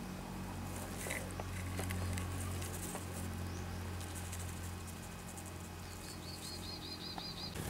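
A steady low hum with faint rustles and clicks of dry straw mulch being handled. Near the end comes a quick run of about eight short, high chirps.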